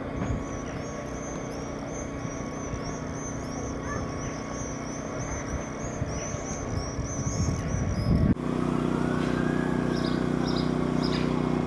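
A small songbird sings a continuous high twittering song over a low background rumble. After a cut about eight seconds in, a steady low engine hum takes over, with a few short bird chirps above it.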